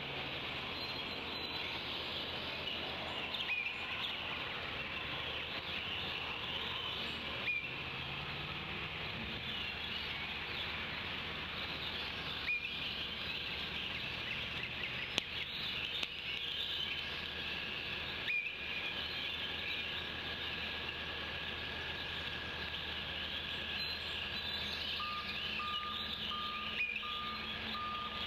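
Many songbirds chirping and singing over a steady hiss, with a few soft knocks. About 25 seconds in, a vehicle's reversing beeper starts beeping at an even pace.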